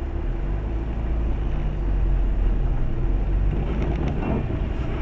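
A car driving, heard as a steady low rumble of engine and road noise that swells slightly about two seconds in.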